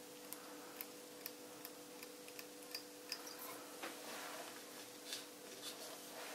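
Faint small clicks and ticks, about two a second at first and then irregular, from hands working fly-tying thread and tools as dubbing is wrapped on a foam extended body, over a steady faint electrical hum.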